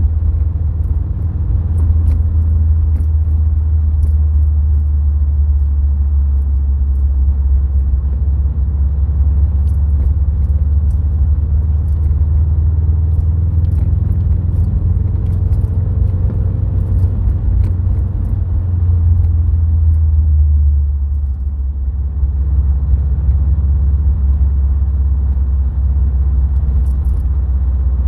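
Subaru WRX STI's turbocharged flat-four engine and tyres giving a steady, low driving rumble. About three quarters of the way through the rumble briefly drops, then settles at a slightly different pitch.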